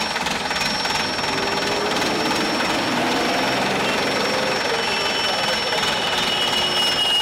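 Loud, steady rattling machinery noise with a thin high whine over it; a second, lower whine joins about two-thirds of the way through.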